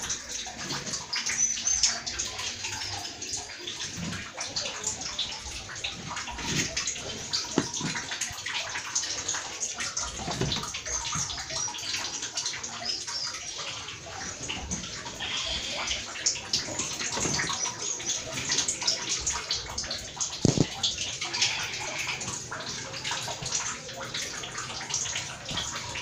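Soapy wash water splashing and sloshing in a single-tub washing machine's tub as clothes are dropped in and pushed under, with irregular louder splashes.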